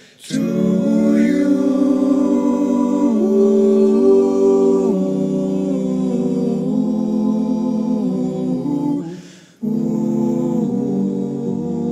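Male vocal quartet singing a cappella: sustained close-harmony chords that move from one to the next. About nine and a half seconds in there is a short break for breath, then a final held chord, the closing chords of the song.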